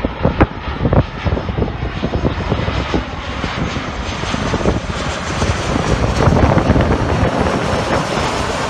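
Jet airliner, a Boeing 737-800 on landing approach with gear down, passing low overhead: steady engine and airframe noise that swells and brightens as it nears, loudest about six seconds in. A few wind thumps on the microphone come in the first second.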